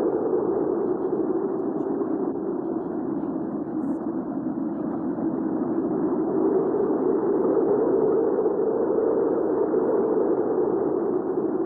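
Recorded hurricane wind: a steady, muffled rush of strong wind with no high end, slowly swelling and easing, a little quieter about four seconds in.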